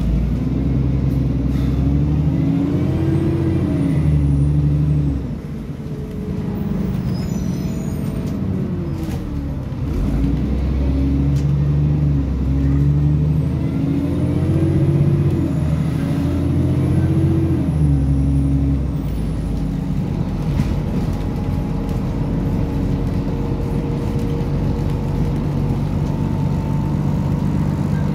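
A bus's diesel engine and automatic gearbox heard from inside the passenger saloon, accelerating in two spells: the engine note climbs and drops back with each upshift. The first spell ends about five seconds in, the second runs from about ten to eighteen seconds, and then the engine settles to a steadier cruise, with a faint high whine rising and falling with speed.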